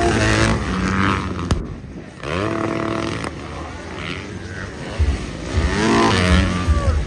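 Motocross dirt bike engines revving hard, the pitch repeatedly climbing and dropping with the throttle as several bikes race around the track. The sound breaks off sharply about a second and a half in, then the revving picks up again.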